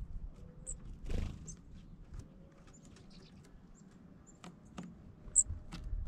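Small songbirds giving short, high chirps several times, the loudest near the end, over scattered light taps and a brief rustle about a second in.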